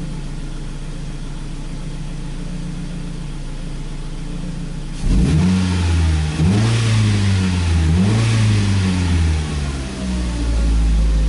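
Ford Focus engine idling steadily, then revved about five seconds in: the pitch climbs and falls twice before dropping back and settling into a steady run. The engine is running lean at idle, which the owner suspects is a vacuum leak, since the fuel trim drops as soon as he revs it.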